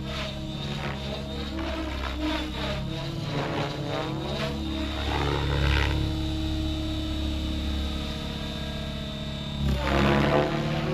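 Align T-Rex 700X electric RC helicopter in flight: rotor blades whirring at high headspeed over a steady high motor whine. The sound swells as the helicopter passes close about six seconds in, and again near ten seconds.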